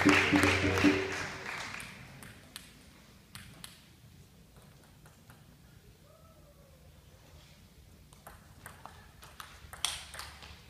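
Table tennis ball clicking off the table and the rubber bats: a few scattered bounces, then a quick run of clicks near the end as a rally is played. Music and crowd noise fade out over the first two seconds.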